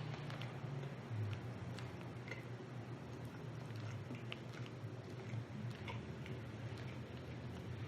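A person chewing rotisserie chicken close to the microphone: scattered soft, wet mouth clicks, over a low steady hum.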